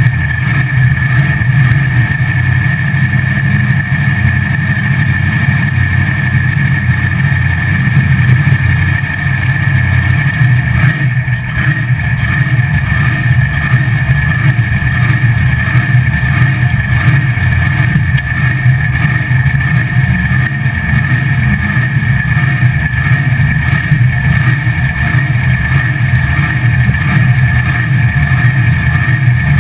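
Drag-race Chevrolet LUV pickup's engine running loud while the truck is driven, heard inside the cab, with an even pulsing beat and a brief dip in level about eleven seconds in.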